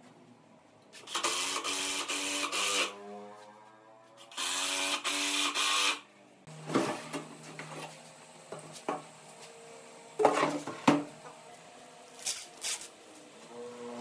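An electric power tool switched on in two short bursts of about two seconds each, its motor winding down after each burst, followed by a few sharp knocks.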